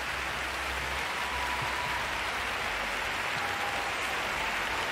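Large arena crowd applauding steadily.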